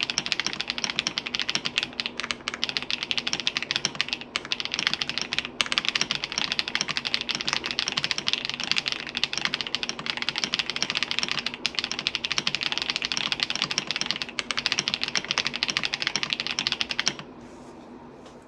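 Fast continuous typing on a custom mechanical keyboard fitted with thick PBT Crush80 keycaps, a dense stream of keystrokes that stops about a second before the end.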